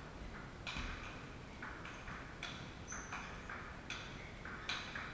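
Table tennis rally: the ball clicking off the players' bats and bouncing on the table, roughly two strikes a second, each with a short echo from the hall.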